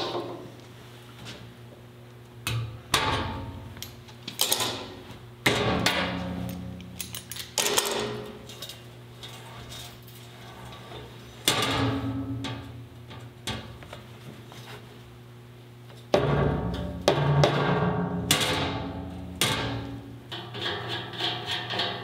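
Sheet-steel cabinet door on freshly welded hinges being swung and shut against its steel lip. It makes a dozen or so uneven metallic bangs and clanks, each ringing briefly. A steady low hum runs underneath.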